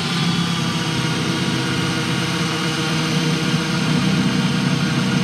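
Parkside cordless angle drill running steadily under load, its 10 mm wood bit stalled about halfway into C16 softwood and burning in the hole rather than cutting: the drill is too underpowered to drive a bit this size through.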